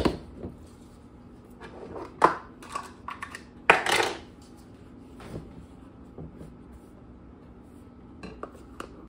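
Scattered clicks and knocks of a plastic snap-lock flour canister being unlatched, handled and set against the counter and cookware. The loudest clatter comes about four seconds in.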